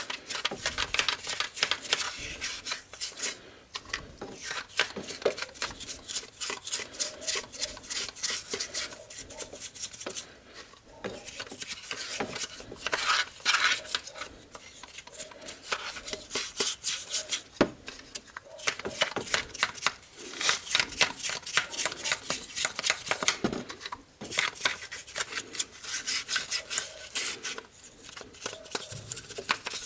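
Rapid scrubbing strokes on the engine around the oil seal seat, washing off grime with white spirit, in bursts broken by short pauses.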